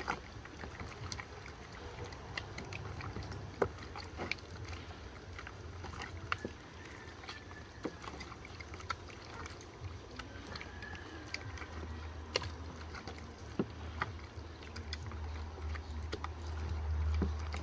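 Hands rubbing wet seasoning into raw chicken pieces in a plastic bowl: soft squelching with scattered sharp clicks, over a low rumble that swells near the end.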